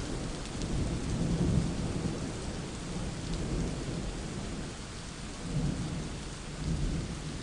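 Thunderstorm: steady rain with low rolling thunder rumbling underneath, swelling a few times.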